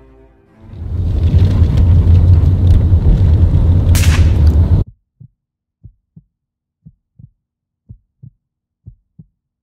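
A loud low rumbling roar with a rushing whoosh near its end, cut off sharply a little before halfway. Then a heartbeat sound effect: soft low double thumps, about one pair a second.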